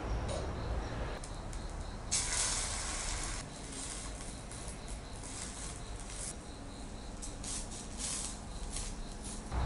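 Egg and oil sizzling in a small copper tamagoyaki pan: a sudden loud surge of sizzle about two seconds in that dies down after a second or so, then uneven crackling and spitting.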